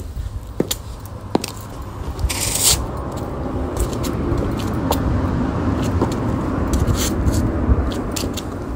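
Heel clicks of someone walking in high-heeled boots, then from about two seconds in a louder, steady noise of road traffic going by.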